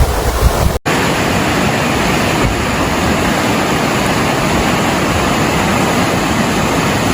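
Wind buffeting the microphone, which cuts off abruptly just under a second in. Then comes a steady, even rushing hiss of fast-flowing floodwater.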